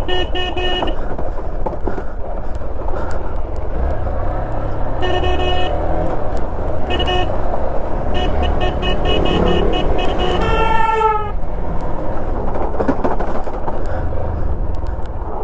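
Off-road motorcycle engine running with a steady low rumble during a trail descent, broken by clusters of short horn toots around the first second and again from about five to nine seconds in.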